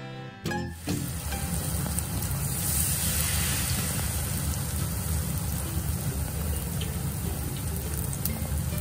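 Battered vegetables deep-frying in hot oil: a steady sizzle with scattered crackles, beginning about a second in.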